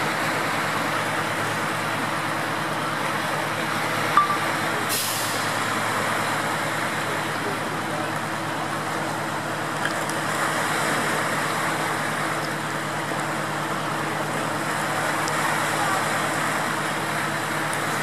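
Fast floodwater rushing and churning steadily around a swamped pickup truck, with a steady low engine hum underneath. A single sharp knock about four seconds in.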